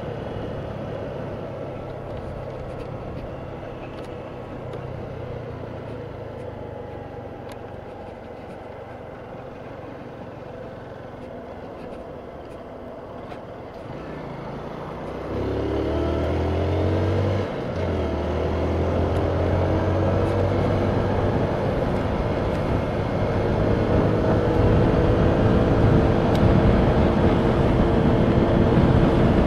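A 125 cc motorcycle engine running steadily at a moderate pitch, then, about halfway through, growing louder and rising in pitch as it accelerates, with a brief break partway up. Wind rushes over the microphone more and more as speed builds.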